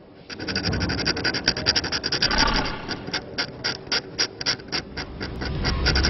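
Rapid rasping clicks, about eight a second, slowing to about three a second in the middle and quickening again near the end, over a low rumble: a sound effect from an animated soundtrack.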